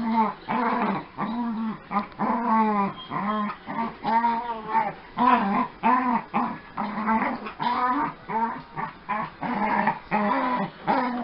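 Dogs play-fighting, with many short rising-and-falling growls and whines in quick succession, about two a second.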